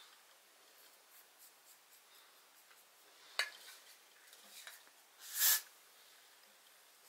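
Quiet rubbing and rustling of fingers on hair, with a sharp click about three and a half seconds in and a short hiss of hair spray about five and a half seconds in.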